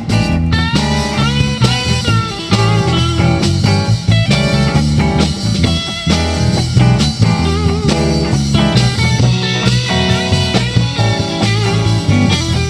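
Live band playing an instrumental blues passage: electric guitars with a lead line of bent notes over a drum kit.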